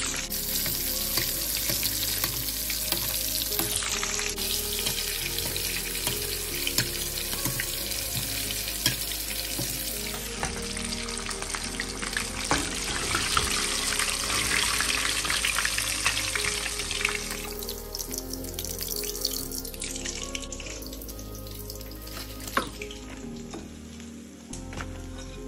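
Rohu fish deep-frying in hot oil in a wok, a steady sizzle and crackle of bubbling oil that thins out after about seventeen seconds. Background music runs under it.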